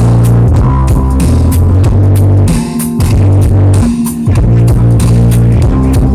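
Loud electronic music with a heavy bass line and a steady beat; the bass drops out briefly twice.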